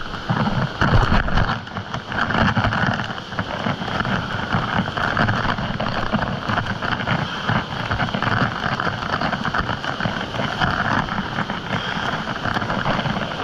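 Rushing river water with wind buffeting the microphone, a dense noise that rises and falls unevenly.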